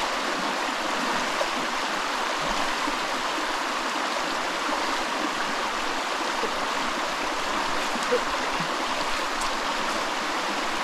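Fast-flowing river water rushing steadily over stones.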